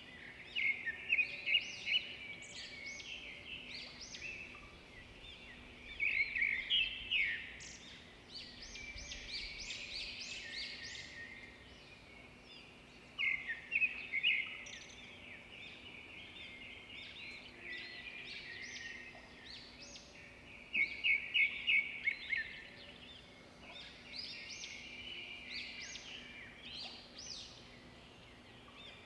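Small songbirds singing: many short chirps and quick trills that come in louder bursts several times, over a faint steady hum.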